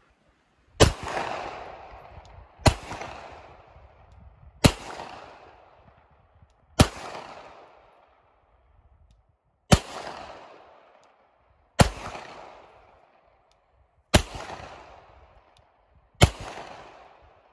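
A 9mm pistol fired eight times in slow, evenly paced shots about two seconds apart. Each sharp report is followed by an echo that fades away.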